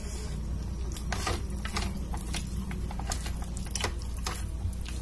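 Bare hand squishing and mixing rice with dal and paneer curry on a plate: soft wet squelches and scattered clicks of fingers against the plate, over a steady low hum.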